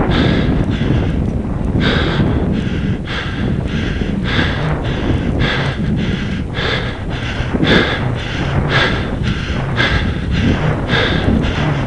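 A cyclist's hard, rhythmic breathing, about two breaths a second, from the effort of a long, steep climb. A steady low wind rumble on the microphone runs underneath.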